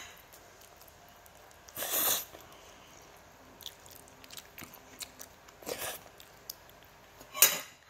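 A child slurping spicy instant noodles off a fork and chewing. Three short slurps, about two seconds in, again a few seconds later, and once more near the end, with faint chewing clicks between.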